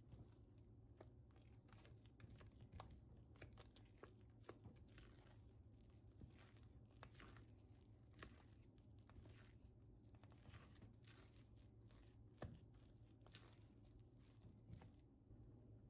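Faint handling sounds: crinkling and tearing with many scattered small clicks and taps.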